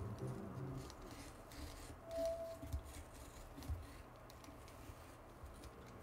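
A sheet of paper handled by hands, with light crisp rustles and a few soft thumps as it is pressed and smoothed.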